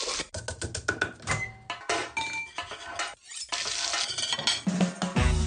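Metal kitchen utensils clinking quickly against stainless steel bowls and pans, some strokes ringing briefly. Music with a bass line and a steady beat comes in near the end.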